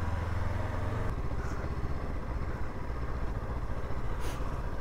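Honda CL500's parallel-twin engine running steadily at low revs, a little louder in the first second, with a brief click about four seconds in.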